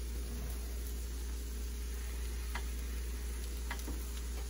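Eggs sizzling faintly on an electric griddle while a plastic spatula scrapes under them, giving a few light clicks against the griddle surface, over a steady low hum.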